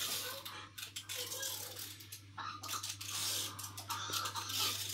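Hand tool and loose metal bolts clicking and clinking as the bolts are undone from an engine side casing, over a steady low hum.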